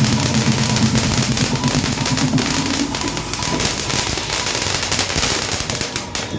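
Fireworks going off in a dense, unbroken run of rapid pops and crackles.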